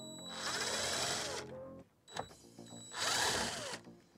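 Cordless drill-driver spinning out screws from a plastic steering column cover, in two bursts: a longer one about half a second in and a shorter one about three seconds in, the motor pitch rising and falling.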